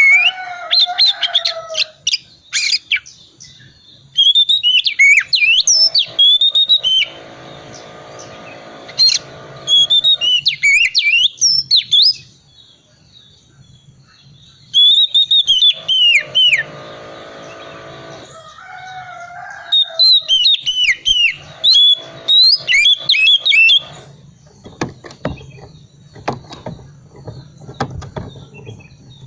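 Oriental magpie-robin (kacer) singing in its soft 'ngriwik' twitter: bursts of rapid, sweeping chirps lasting two to four seconds, with short pauses between. In the last few seconds the song stops, leaving scattered clicks and a low hum.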